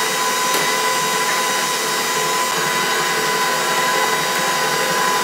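KitchenAid Professional HD stand mixer running steadily, its flat paddle beating butter, sugar and egg: an even motor whine with a fixed high tone over it.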